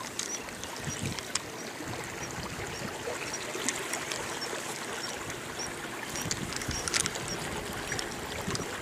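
Water lapping and trickling against the hull of a small boat, with a few sharp clicks, the loudest about seven seconds in.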